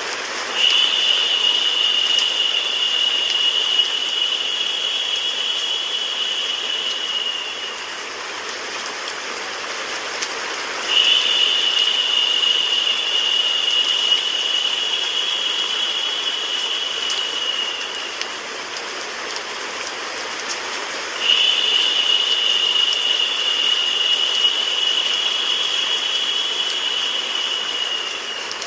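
Steady rain-like white noise. Three times, a high narrow hiss rises over it for about seven seconds, sinking a little in pitch as it ends.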